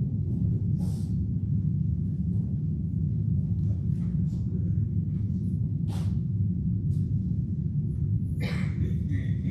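Steady low rumble of room noise in a large hall, with a few faint clicks, likely from a laptop being worked at a lectern. A short, brighter sound comes in near the end.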